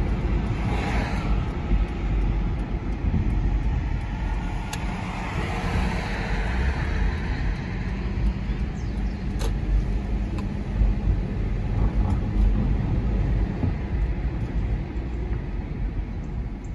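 Road noise heard from inside a moving car's cabin: a steady low rumble of engine and tyres on the pavement.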